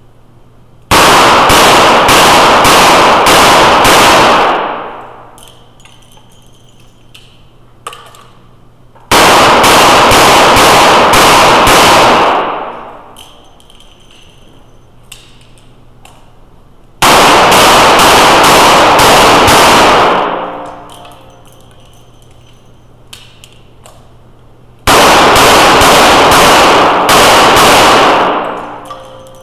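Revolver fire in four strings of about six rapid shots each, the strings starting roughly every eight seconds, each shot echoing off the walls of an indoor range.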